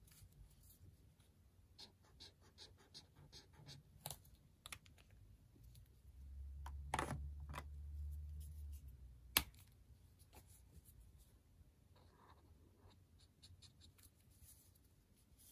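Faint scratching and tapping of a Stabilo Boss highlighter's chisel tip drawing short strokes on notebook paper. A low rumble runs from about six to nine seconds in, and one sharp click comes just after it.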